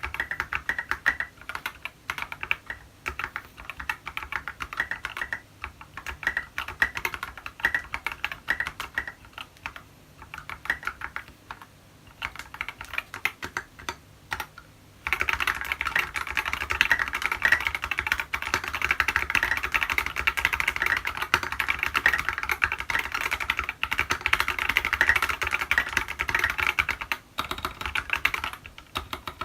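Typing on a TX65 mechanical keyboard with SA-profile keycaps and lubed Tealios linear switches: a continuous stream of keystrokes. About halfway through, the typing becomes faster and denser.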